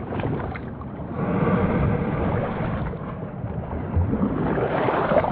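Rushing creek water with wind buffeting the microphone, a steady noisy wash that swells and eases.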